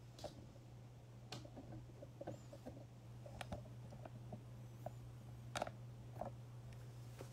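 Faint handling noise: scattered soft clicks and small rustles, a few of them sharper, over a steady low hum.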